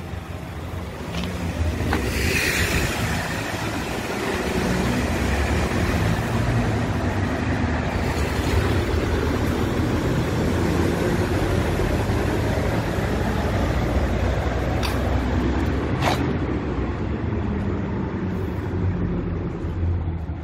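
A road vehicle passing through a concrete road tunnel: a steady rumble that builds over the first two seconds, holds, and fades near the end.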